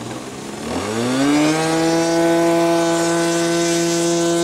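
Small engine of an RC model airplane revving up over about a second, then holding a steady, even buzzing note at high throttle.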